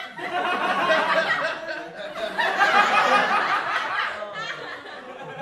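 An audience laughing after a punchline, apparently a canned laugh track. The laughter swells about two and a half seconds in and dies away near the end.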